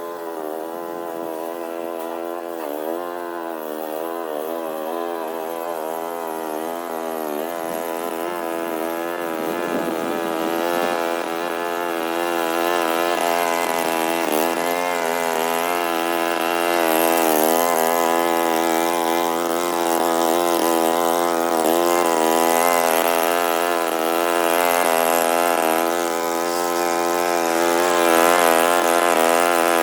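Lawn mower engine running steadily, its pitch dipping and recovering now and then as it takes load. It grows gradually louder over the stretch.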